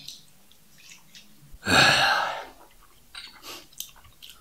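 A single loud, breathy burst from the man at the table, starting about a second and a half in and lasting under a second. After it come a few faint short clicks and mouth sounds, the kind made while chewing.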